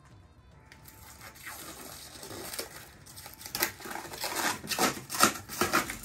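Crinkling and tearing of packaging being handled at the fridge, a run of sharp, irregular rustles that starts a few seconds in and gets louder toward the end.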